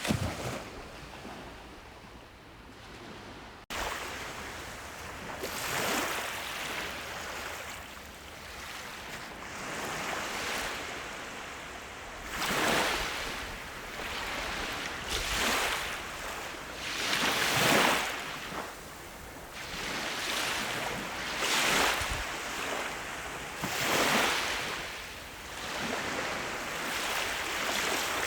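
Sea waves breaking and washing in, swelling and falling back every two to three seconds. About four seconds in, the sound jumps abruptly louder where the recording is spliced.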